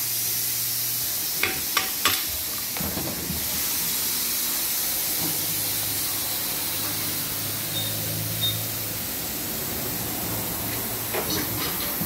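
Steady hiss with a low hum coming and going underneath, typical of tyre-shop machinery. A few sharp knocks come about a second and a half in, and again near the end, as wheels with tyres are handled on the floor.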